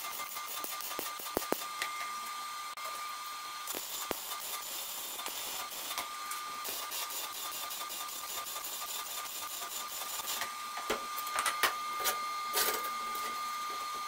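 Electric arc welding on a steel plate: a steady crackling and hissing of the arc, changing a few times as the weld stops and restarts. A few louder metal knocks come near the end as the plate is handled.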